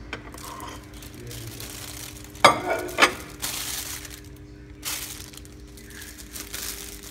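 A plate knocked down onto a microwave's glass turntable: two sharp clinks about half a second apart, a couple of seconds in. Plastic bag rustling follows, over a steady low hum.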